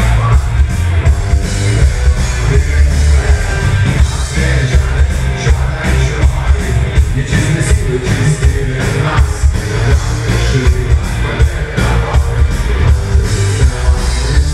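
Loud live rock band playing: distorted electric guitar, a drum kit beating steadily, and a singer's vocals through the PA, with a heavy, booming bass.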